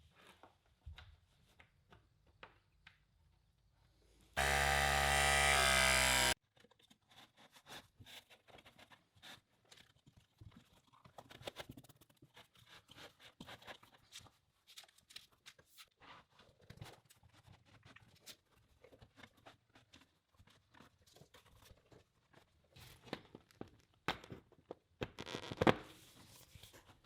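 Work handling sounds of pipe and fittings, light clicks and scrapes, broken about four seconds in by a small power tool's motor running steadily for about two seconds.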